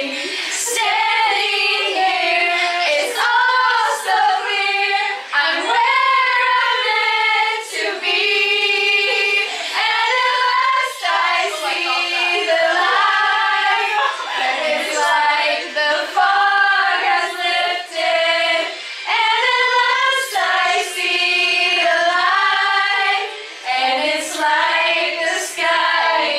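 Female voices singing a song together, with held notes that rise and fall in pitch.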